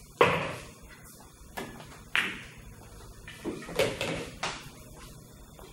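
Pool shot: a sharp click of the cue tip striking the cue ball, the loudest sound, followed over the next few seconds by several more clicks and knocks of balls colliding and rebounding off the cushions, as an object ball is sunk.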